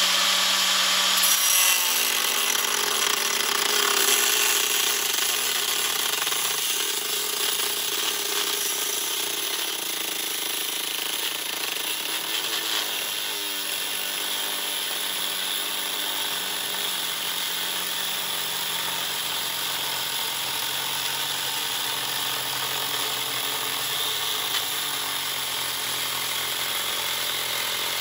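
Corded angle grinder with a cutting disc slicing along the core of a car radiator, a steady motor whine under a continuous grinding hiss.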